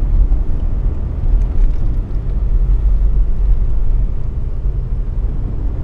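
Steady low rumble of a car running.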